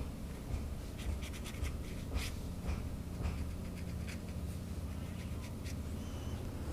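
Dry-brush watercolor strokes: a brush carrying little water scratching in short strokes across watercolor paper, the strokes thinning out about halfway through. A low steady hum lies underneath.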